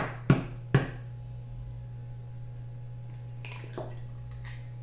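An egg knocked three times against the rim of a bowl to crack it: three sharp knocks within the first second, then a few fainter clicks of the shell a few seconds later. A steady low hum runs underneath.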